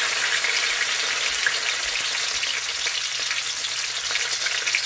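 Garlic sautéing in hot canola oil in a pan: a steady sizzle with fine crackles throughout.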